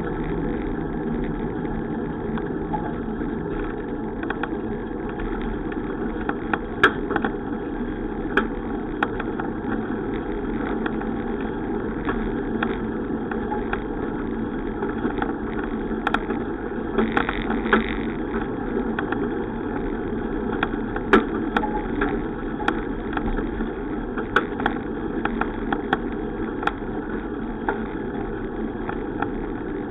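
Steady wind and road noise from a bicycle in motion, with scattered sharp clicks and rattles.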